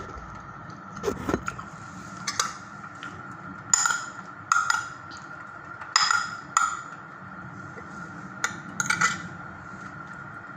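Spoon clinking and scraping against ceramic plates and a bowl while eating: a dozen or so sharp clinks at irregular intervals, some in quick pairs, over a steady low hum with a faint steady high whine.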